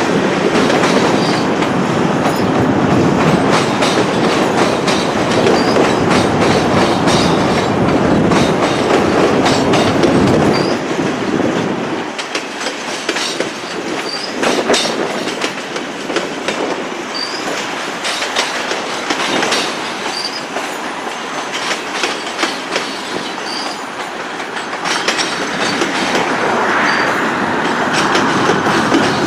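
Freight train cars rolling past, wheels clicking over rail joints with some wheel squeal. It is loudest for the first ten seconds or so, eases off after about twelve seconds, and builds again near the end.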